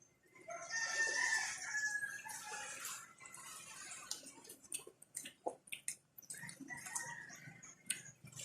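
A rooster crowing once, a drawn-out call of about two and a half seconds starting about half a second in, with a fainter call near the end and a few light clicks of dishes or utensils.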